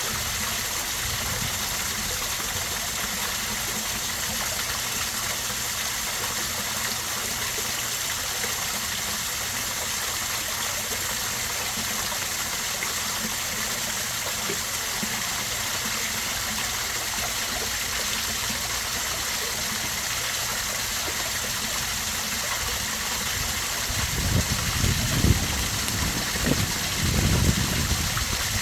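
Backyard koi pond waterfall splashing steadily into the pond, an even rush of falling water. Near the end a few low rumbling bumps rise over it.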